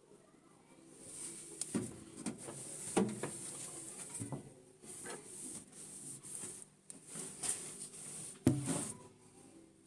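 Scrubbing and wiping inside a microwave oven: repeated rubbing strokes with several knocks against the oven, the loudest near the end.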